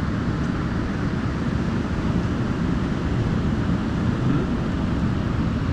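Steady low rushing noise of wind on the microphone, with the wash of ocean surf.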